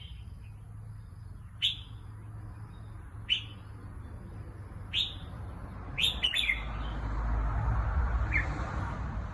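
Red-whiskered bulbul giving short, downward-sweeping chirps about every second and a half, then a quick run of notes about six seconds in and one more chirp a little later. A low rumble builds in the second half.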